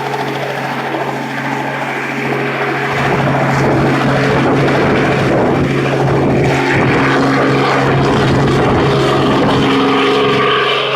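Helicopter rotor and engine running at take-off: a steady hum under a rushing noise that grows much louder about three seconds in and stays loud.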